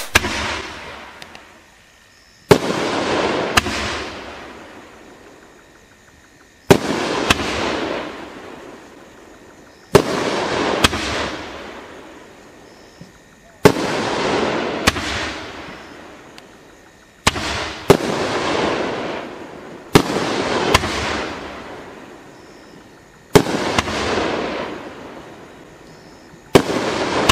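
A 500-gram, 20-shot consumer firework cake (Doremi Squire of Legend) firing shot after shot, eight in all, about every three to four seconds. Each shot is a sharp bang with a second report about a second later, then a hiss that fades over a few seconds.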